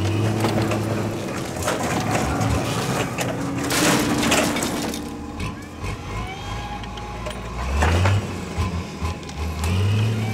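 Concert grand piano tipping off a forklift's forks and crashing onto paving, its wooden case cracking and splintering, with the loudest crash about four seconds in. The forklift engine runs throughout and revs up briefly about eight seconds in and again near the end.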